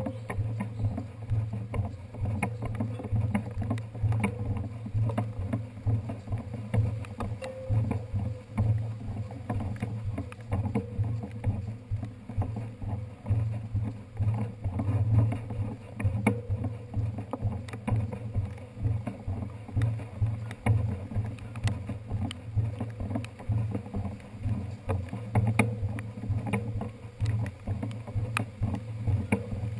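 A bicycle pushed along a wet pavement, heard through a handlebar-mounted GoPro's waterproof housing: a steady muffled rumble with frequent small knocks and rattles from the bike and mount jolting over the paving.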